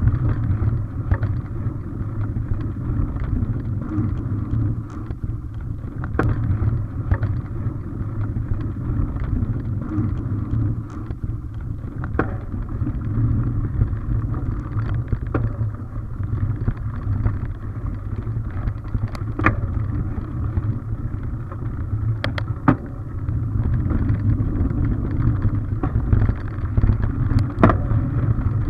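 Mountain bike riding a dirt singletrack, heard through a bike- or helmet-mounted action camera: a steady low rumble of tyres on the dirt and wind on the microphone, with a few sharp clicks and knocks from the bike jolting over bumps.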